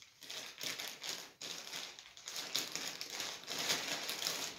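Scissors snipping through a plastic mailer bag, the plastic crinkling and rustling as it is cut and pulled open, as a run of short, irregular crackles.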